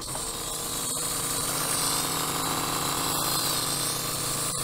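Geyser portable camping shower's electric pump running with a steady hum while water sprays from the hose, the pump gurgling, the sign that the reservoir is running out of water.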